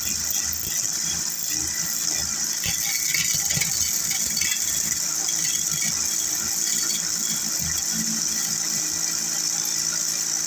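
Wood lathe running steadily with a constant high hiss and low hum, with some light rattling around three to four seconds in.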